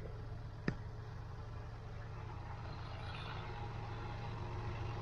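An engine running steadily at low speed, with a single sharp click or knock under a second in.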